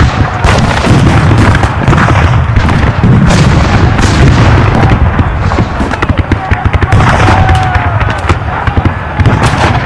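Recreated Civil War battle: dense, rapid rifle-musket fire crackling over a continuous low rumble of cannon booms.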